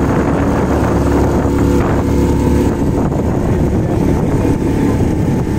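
Small tiller-steered outboard motor running steadily, pushing an open motorboat along at speed, with wind noise on the microphone.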